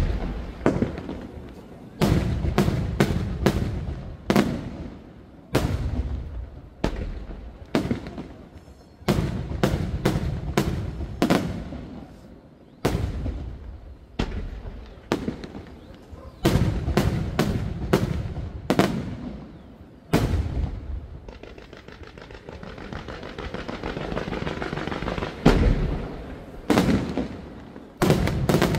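Aerial firework shells bursting one after another: sharp bangs with booming, echoing tails at irregular intervals. About two-thirds of the way in, a dense crackling swells over several seconds and ends in the loudest bang, and a quick flurry of bangs comes near the end.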